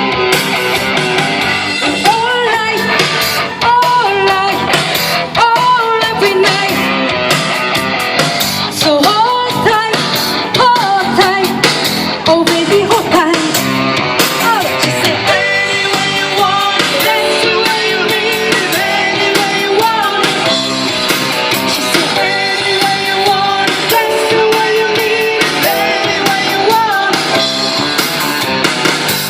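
Live rock band music: electric guitar over bass and drums with a singing voice, playing at a steady, full level.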